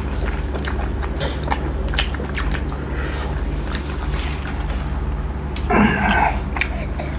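Close-up eating sounds of pork curry and rice eaten by hand: scattered mouth clicks and chewing over a steady low hum, with one louder short burst about six seconds in.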